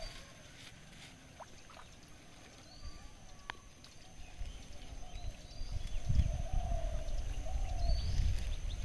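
Quiet open-air ambience with a few faint, short, high bird chirps and a faint wavering call. An uneven low noise comes in about six seconds in and grows louder.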